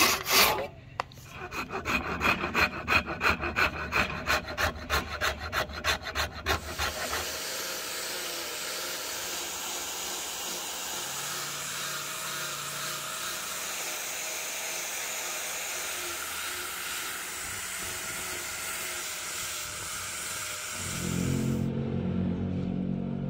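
A hand saw cutting wood with quick, even back-and-forth strokes, which gives way after about six seconds to a steady, even rubbing hiss. A low hum comes in near the end.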